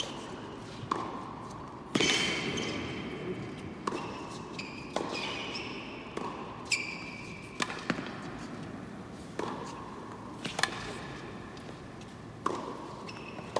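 Tennis rally on an indoor hard court: about nine racket strikes on the ball, one every second or so, each echoing in the hall, the loudest about two seconds in. Short high squeaks follow several of the shots, typical of players' shoes on the court.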